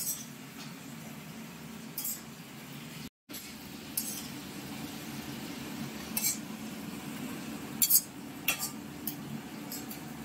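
Metal kitchen utensils clinking and knocking against pots and dishes, about eight sharp clinks spread out, over a steady low hum. The sound drops out for a moment about three seconds in.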